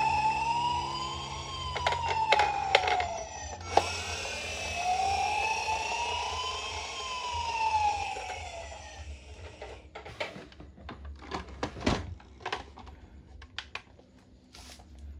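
Electronic siren of a toy ambulance wailing, rising and falling slowly twice with a brief break between the cycles, stopping about nine seconds in. Scattered light clicks and taps follow.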